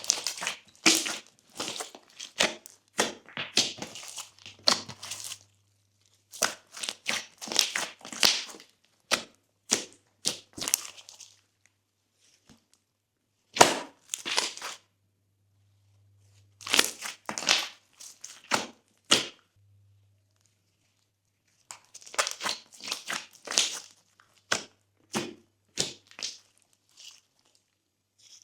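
Glossy slime being squished and folded, giving dense runs of clicky pops and crackles in bursts of a few seconds, with short pauses in between.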